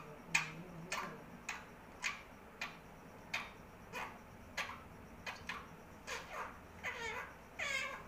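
Indian ringneck parakeet giving short sharp chirps, roughly two a second, then a couple of longer calls that slide down in pitch near the end.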